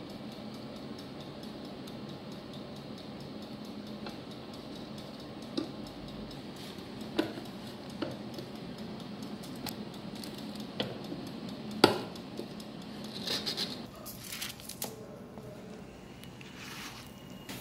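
Kitchen clatter during food preparation: scattered light clinks and knocks of utensils and kitchenware over a steady low appliance hum, with one sharper knock near the middle and a short run of clatter after it.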